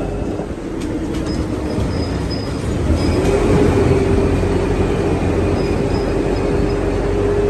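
Open-air parking-lot tram driving along, its motor and rolling noise steady with a whine that grows louder about three seconds in as it passes into a concrete tunnel.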